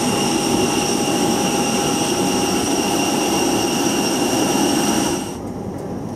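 Steady jet-turbine whine: several high steady tones over a dense rumble. It cuts off suddenly about five seconds in, leaving a much quieter background.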